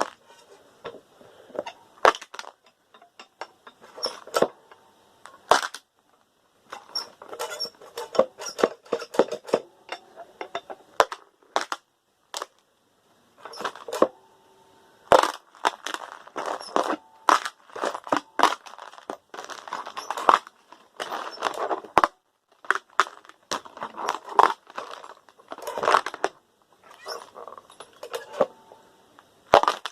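Loose metal screws clattering and clinking in irregular bursts of rattling and sharp clicks.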